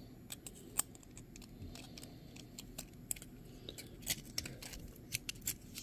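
Irregular faint clicks and taps of a Milwaukee press-and-flip utility knife being handled as a new blade is fitted into it, with a few sharper clicks, one about a second in and another about four seconds in.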